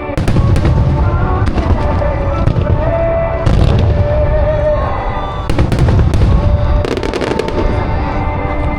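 Aerial fireworks bursting in rapid volleys with deep booms and crackle, heaviest about three and a half, five and a half and seven seconds in, over music with held tones.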